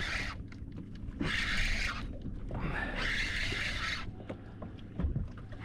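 Fishing reel cranked in three short spells, winding in line against a hooked fish, a hissing, grinding whir with a faint low rumble underneath.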